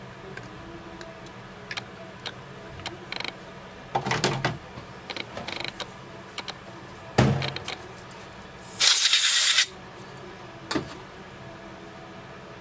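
Metal hand tool clicking and scraping against a brass leadscrew nut as it is deburred and handled, with a few sharper knocks. A hiss lasting under a second comes about nine seconds in and is the loudest sound, over a steady low hum.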